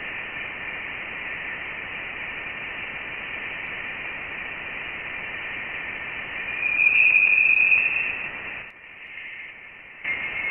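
Space recording of interstellar space turned into sound: a steady radio-like static hiss with a faint high whistling tone. It swells louder about six and a half seconds in, drops away shortly before the nine-second mark, and resumes near the end.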